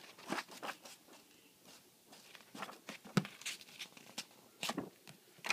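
Pages of a paperback book being turned by hand: short, irregular papery rustles, with one soft knock about three seconds in.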